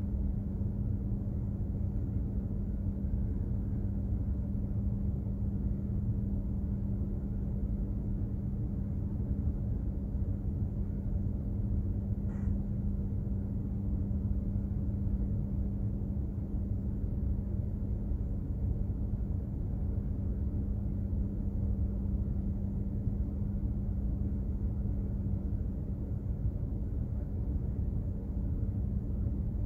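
Steady low rumble of a container ship's machinery while underway, with a constant low hum over it. A faint click about twelve seconds in.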